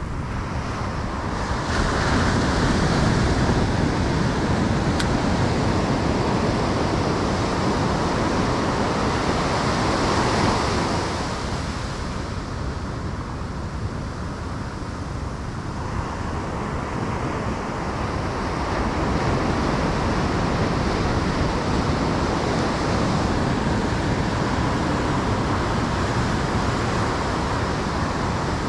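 Ocean surf breaking and washing up the sand, swelling louder twice, with wind on the microphone.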